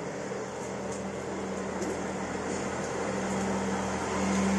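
South Western Railway Class 158 diesel multiple unit running along the platform, its underfloor diesel engines giving a steady drone with a low hum, growing steadily louder as the train comes alongside.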